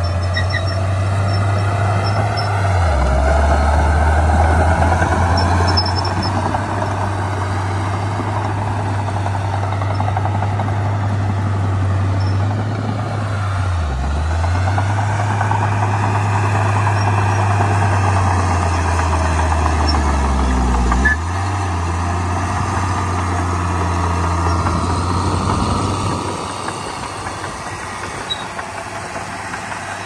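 Heavy diesel earthmoving machinery running, its engine note dipping in pitch and recovering three times: about three seconds in, near the middle, and about two-thirds of the way through. It gets a little quieter over the last few seconds.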